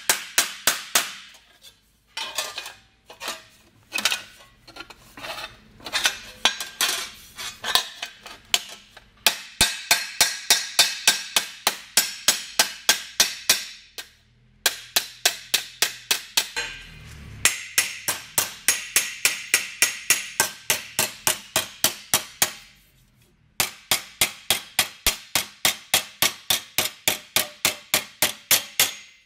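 Steel hammer striking sheet steel held over a vice and a round steel tube, forming a radius in the panel: ringing metal blows, about three a second, in runs broken by short pauses.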